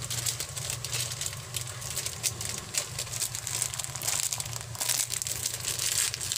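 Thin plastic crinkling and crackling irregularly: the wrapper of a bundle of bamboo barbecue skewers being handled and opened. A low steady hum runs beneath it.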